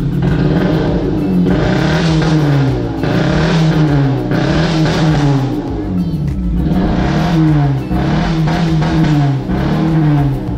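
Honda Civic FD's engine blipped repeatedly through a stainless twin-muffler exhaust, its pitch rising and falling about once a second, with a dry exhaust note. The engine is running with one dead spark plug, so it is revved only lightly.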